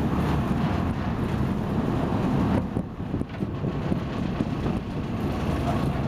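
Sport-fishing boat's engine running steadily under way, with wind buffeting the microphone; the sound drops briefly about three seconds in.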